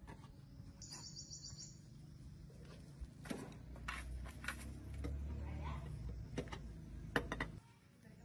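Scattered sharp knocks and taps over a low rumble, with a short run of high bird-like chirps about a second in. The rumble drops away near the end.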